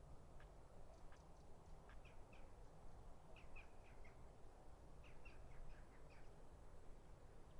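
Faint small birds chirping in short clusters of quick high notes, over a quiet low background rumble.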